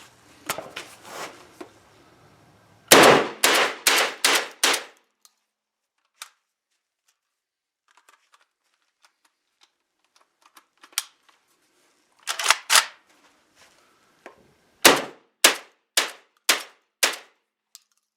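JTS AK-style 12-gauge semi-automatic shotgun firing quick strings of shots, after a few faint clicks. First comes a burst of five shots in under two seconds, then two shots together after a long pause, then five more about half a second apart.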